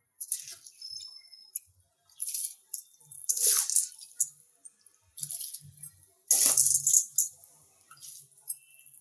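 Dry basmati rice being dropped by the handful into a pot of hot water, each drop a short hissing splash, several of them at irregular intervals.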